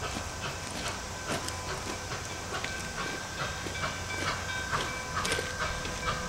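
Nickel Plate Road 2-8-4 Berkshire steam locomotive No. 765 working slowly toward the crossing, its exhaust chuffing in an even beat of about three a second with a steady hiss of steam. A thin, high, steady tone joins about two and a half seconds in.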